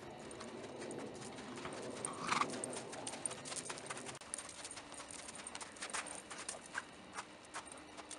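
Horse's hooves on a sand arena, first at a lope and then at a walk, with separate sharp footfalls in the second half. A low rushing noise under the first half cuts off abruptly about four seconds in, and one short louder sound stands out about two seconds in.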